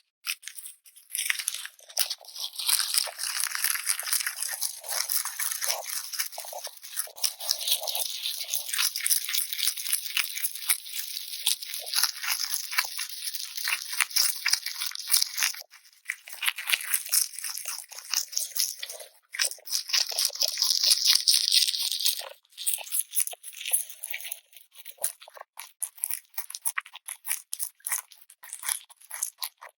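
Pet rabbit munching crunchy food: a fast, near-continuous crunching and crackling that the title likens to a pig's noise. It breaks off briefly twice and turns into scattered single crunches near the end.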